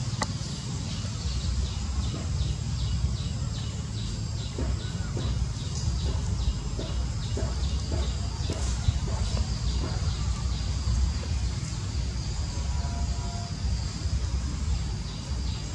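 Outdoor background: a steady low rumble under a short high chirp repeating about three times a second, which stops about ten seconds in.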